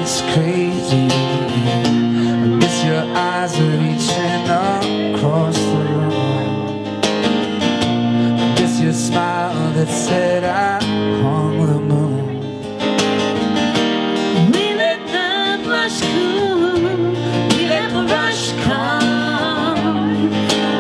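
Acoustic guitar strummed through a song in a live duo performance, with singing over it at times.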